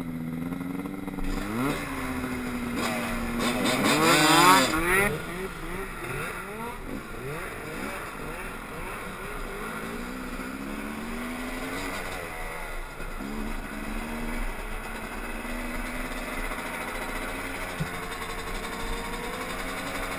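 Yamaha YZ250 two-stroke dirt bike engine, steady at first, then revved hard about four seconds in as the bike pulls away, running on with rising and falling revs.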